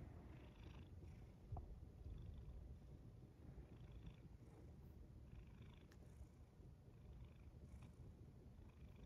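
House cat purring quietly and steadily. A soft knock comes about a second and a half in.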